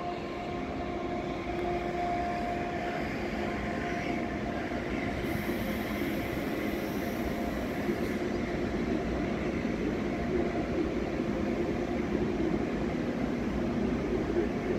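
An electric locomotive-hauled regional train approaches slowly. It gives a steady rumbling run with a faint electric hum that grows slightly louder as it nears.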